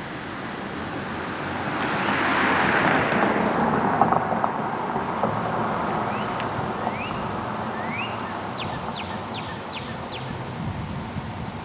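Street ambience before the siren sounds. A passing vehicle swells about two seconds in and fades. Later come a few short rising chirps and then five quick falling high whistles.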